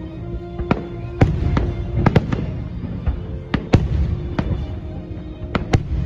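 Aerial fireworks going off in a string of sharp bangs, about a dozen, irregularly spaced, some in quick pairs. Music plays underneath.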